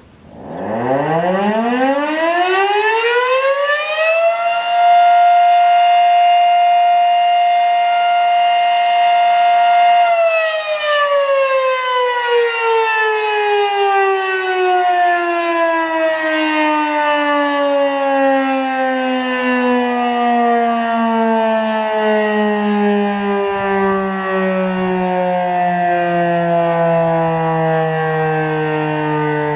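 Fedelcode Model 3 electromechanical siren sounding its noon test blast. It winds up from a standstill over about four seconds, holds a steady loud wail at a single pitch for about six seconds, then winds down in a long, slow fall in pitch.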